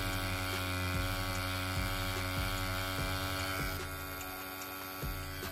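Rhein EM145 wireless rotary tattoo pen running, a steady electric motor hum, turned down to its lowest recommended voltage of 6 volts for lining on silicone practice skin. A few faint ticks sound over the hum.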